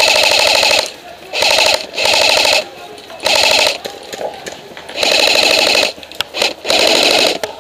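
AK-pattern airsoft electric gun firing five short full-auto bursts, each under a second, spaced a second or two apart. Each burst is a fast buzzing rattle of the gearbox cycling.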